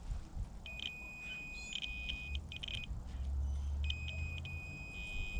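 Digital multimeter's continuity beeper giving a steady high-pitched beep as its probes bridge the outer contacts at both ends of a two-pole speaker cable. The beep cuts in and out a few times, then holds steady near the end, a low rumble underneath. The beep means that conductor runs unbroken from end to end.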